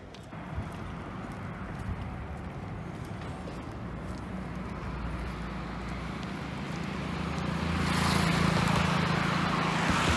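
Road traffic with a steady engine hum. One motor vehicle approaches and passes, loudest from about eight to ten seconds in.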